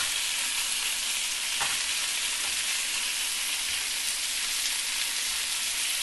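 Marinated lamb chops searing in mustard oil in a hot pan over a high flame: a steady sizzle, with a faint tick about one and a half seconds in.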